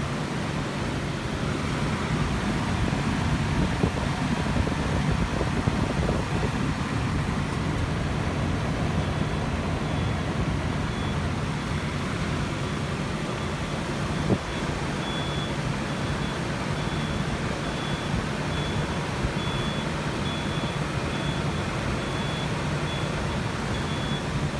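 A 1998 Mazda MPV minivan's engine running steadily. From about nine seconds in there is a faint, high-pitched tone that comes and goes, and there is a single knock about fourteen seconds in.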